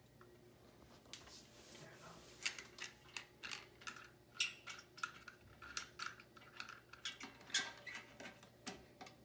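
Irregular small clicks and taps of a screw and washer being fitted and turned down through a bidet seat's plastic mounting plate onto the toilet, several clicks a second.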